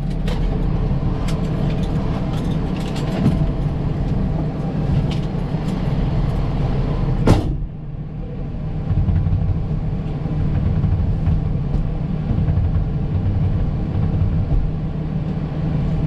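Fire engine's diesel engine idling steadily, heard from inside the cab, with scattered light clicks and a sharp thump about seven seconds in, after which the sound turns duller.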